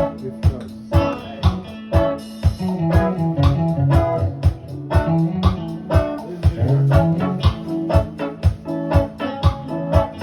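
Music playing: a plucked guitar over a moving bass line and an evenly spaced drum beat, a little over two hits a second.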